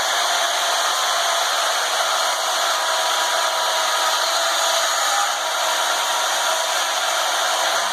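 Bauer 10-amp portable band saw running and cutting through scrap metal: a steady, loud whine and rasp of the blade in the metal.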